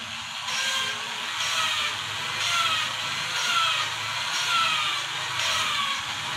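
A valve being lapped into its seat on a diesel cylinder head: a gritty rubbing of metal on metal with lapping compound, with a short squeal on each stroke. It repeats about once a second.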